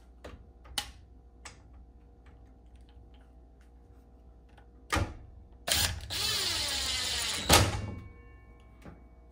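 Clicks and knocks from handling a SKIL circular saw. About five seconds in comes a knock, then about two seconds of steady noise that ends in a loud knock.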